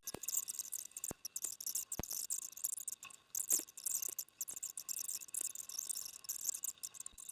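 Sped-up crinkling and rustling of foil card-pack wrappers and cards being handled, heard as a fast, high-pitched chittering with scattered sharp ticks.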